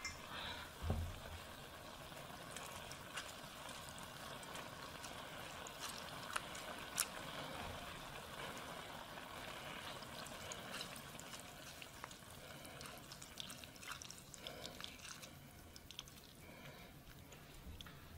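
Mandarin orange juice, squeezed by hand through a mesh strainer, trickling and dripping faintly into a stainless skillet of juice, with a few small clicks and taps.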